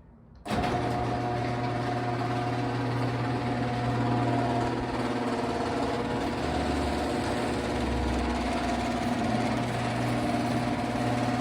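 Electric garage door opener starting about half a second in and running steadily as it moves the door, a steady motor hum. With its hinges, spring, pulley and rails freshly lubricated with white lithium grease, it runs much quieter.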